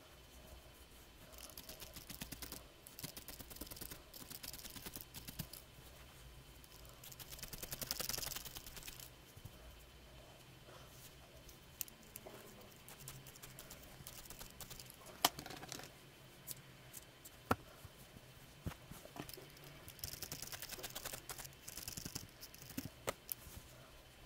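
Felting needle in a pen-style holder jabbing rapidly into wool, joining a needle-felted cat's head to its body. It comes as faint runs of quick clicks in three stretches, with a few sharper single clicks in between.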